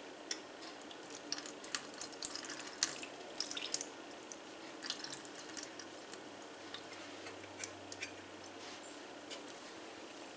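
Water squeezed by hand from canned tuna dripping and spattering into a stainless steel sink, with many small sharp clicks and ticks from the can, busiest in the first few seconds and sparser after.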